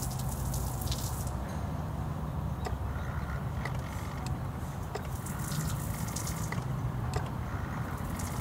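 Gasoline spraying out of the open vacuum port of a car's fuel pressure regulator with the key on, splattering as it lands. It is the sign of a ruptured regulator diaphragm, which floods the cylinders so the engine won't start.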